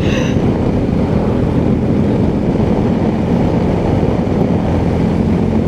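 BMW R1250 GSA motorcycle riding at road speed: a steady rush of wind and road noise with the boxer-twin engine running underneath.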